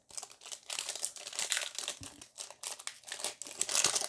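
Foil Pokémon booster pack wrapper crinkling and crackling in the hands as it is worked open. It is a rapid, irregular run of crackles, busiest near the end.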